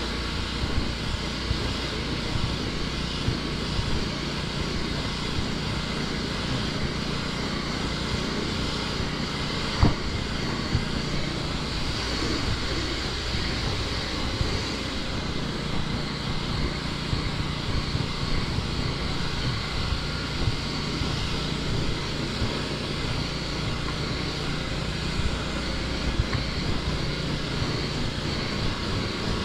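Pressure washer running steadily as it cleans wooden deck boards: a continuous engine drone mixed with the hiss of the spray. A single sharp click sounds about ten seconds in.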